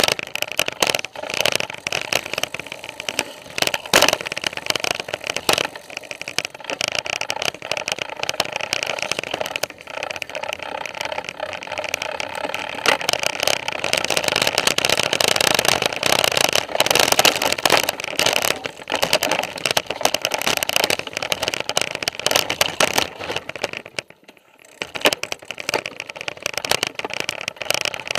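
Mountain bike riding fast over rough dirt singletrack, picked up by a camera mounted on the bike: constant rattling and clattering of the frame and parts, with tyres bumping over rocks and roots. The noise drops away for about a second near the end.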